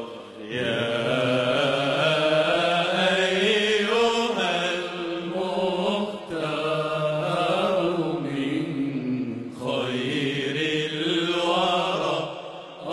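Male munshid's voice singing an Arabic religious chant (inshad) in long, ornamented phrases, with short breaths between phrases.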